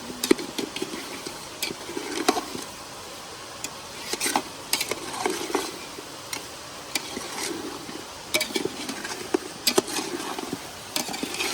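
A spoon stirring and scraping around a cooking pot of mutton, with irregular sharp clinks against the metal.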